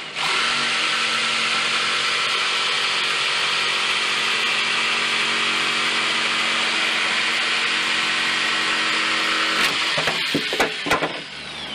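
Electric jigsaw cutting through a pine board, its motor and blade running steadily for about nine and a half seconds before it stops, followed by a few knocks.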